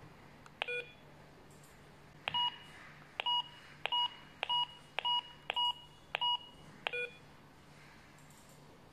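Komvox GT60 walkie-talkie key beeps as its volume buttons are pressed: one lower beep, then seven short higher beeps about 0.6 s apart, then a lower beep. These are the radio's key-press confirmation tones as the volume level is stepped.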